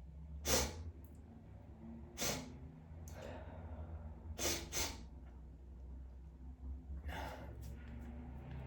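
A person sneezing about five times, sharp sneezes a second or two apart, two in quick succession near the middle, with gasping breaths and sniffs between. A steady low hum runs underneath.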